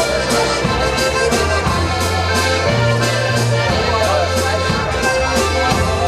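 A live band playing a waltz: a button box (diatonic button accordion) and a piano accordion play the tune together over held low bass notes and an evenly spaced cymbal-and-drum beat.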